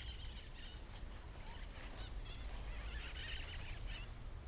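Faint bird calls, a scatter of short chirps and calls that come and go, over a low steady rumble of wind or handling on the microphone.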